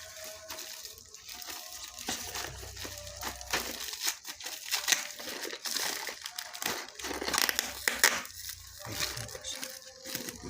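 Packaging being handled and opened: irregular crinkling, rustling and tearing, with sharper crackles about five and eight seconds in.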